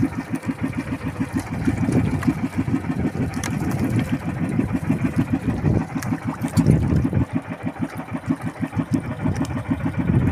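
Engine of a motorized outrigger fishing boat running steadily under way, with a rapid, even low beat of several pulses a second.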